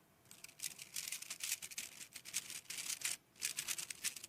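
A 3x3 speedcube being turned at full speed: a rapid run of light plastic clicks and clacks from the layers snapping round, with a brief pause about three seconds in.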